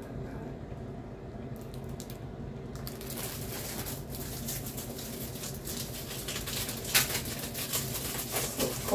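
Crinkling and rustling of a sheet of printed sticker labels being handled, starting about three seconds in, with one louder crackle later on, over a steady low hum.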